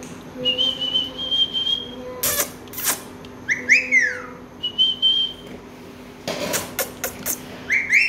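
Alexandrine parakeets whistling and chirping: a steady high whistle held for about two seconds, a few quick falling chirps about four seconds in, a second shorter whistle, then a run of sharp clicks and a rising-then-falling call near the end.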